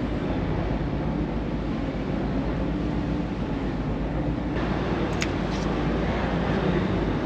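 Harbour ferry's engine running steadily under a constant rush of noise, which grows brighter a little past halfway.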